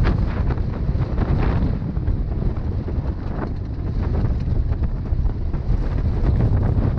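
Wind buffeting the microphone of a camera on a moving motorcycle, over the low running of the 250 cc bike's engine on a loose gravel road, with brief crackles of stones under the tyres.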